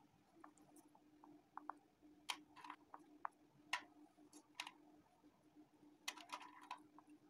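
Faint, scattered light clicks and taps, a quick flurry of them near the end, over a low steady hum.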